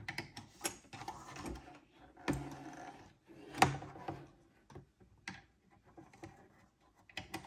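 Metal loom hook clicking and scraping against the plastic pegs of a KB afghan knitting loom as yarn loops are lifted over them: irregular light taps, a few stronger clicks in the middle.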